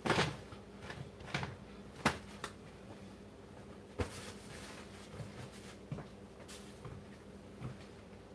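A few scattered knocks and clicks of kitchen items being handled, the loudest right at the start and another sharp one about two seconds in, over a faint steady hum.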